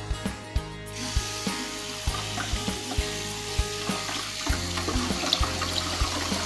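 Kitchen tap running, with water splashing onto grapes in a plastic tub in a stainless steel sink; the water comes on about a second in. Background music with a steady beat plays throughout.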